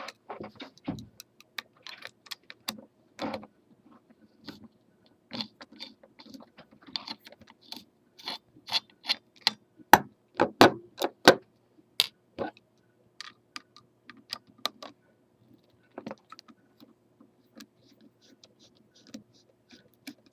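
Irregular small metallic clicks and clinks of a hand tool working the small screws out of a sign-cutter carriage's top flexure. They come in quick clusters, loudest about halfway through.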